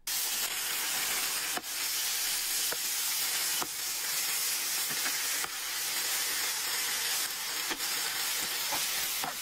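Tomato pasta frying in an oily pan: a steady sizzle, with a few faint ticks.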